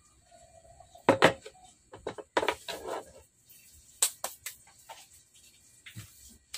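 Knocks and clatter of a bent steel bicycle-seat rail and a bike saddle being handled and set down on a tabletop: a loud knock about a second in, then several smaller clunks and taps.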